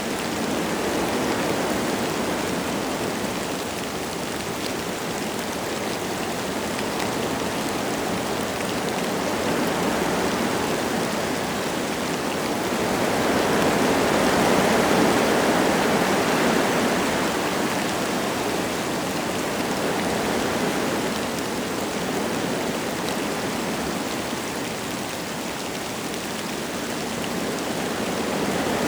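Wind gusts blowing through forest trees with light rain, the rushing swelling and easing slowly and loudest about halfway through.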